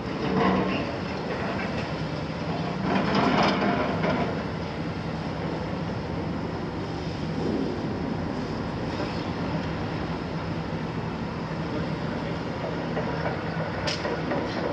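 Hitachi 350 excavator's six-cylinder Isuzu diesel engine running steadily under working load, with its demolition grapple crunching through concrete rubble. A louder crash of debris comes about three seconds in, and a sharp knock near the end.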